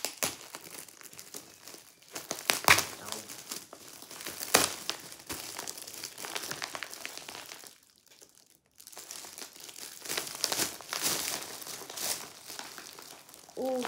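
Metallic foil gift wrap crinkling and rustling as it is pulled open by hand, with a few sharp crackles and a brief lull a little past the middle.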